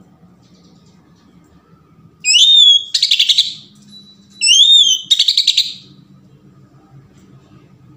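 Male oriental magpie-robin singing two loud phrases, each a clear whistle sliding up and down followed by a fast rattling run of notes. The first phrase starts about two seconds in.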